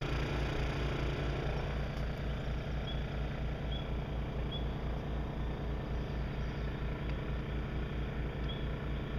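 Small engine running steadily with a low, regular throb. Faint high chirps come in two short runs, a few seconds in and near the end.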